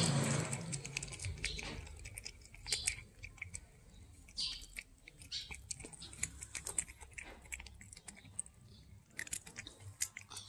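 A cat chewing fried fish close up, with irregular clicking bites and chews. A low rumble at the start fades away over the first two seconds.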